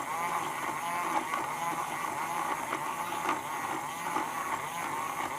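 Battery-powered toy mini washing machine running, its small motor giving a steady hum with a wavering whine as it turns a makeup sponge in soapy water.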